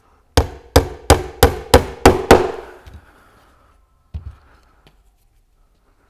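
Hammer driving a nail into a cedar beehive eke: six quick blows at about three a second, then one more a couple of seconds later.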